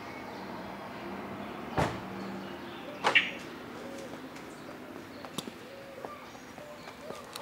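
A car door shutting with a thump about two seconds in, then a second, louder sharp knock about a second later. After that, light footsteps on pavement and birds calling in the background.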